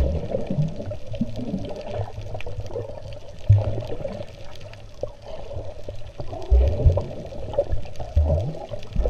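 Underwater sound of a swimmer's strokes churning the sea close by: a steady muffled rush of moving water and bubbles, with a few low thumps.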